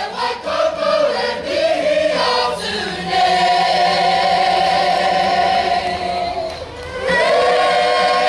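Māori kapa haka choir singing a waiata tira in harmony, voices holding long chords. Near the end the sound dips briefly, then the voices slide up into a new sustained chord.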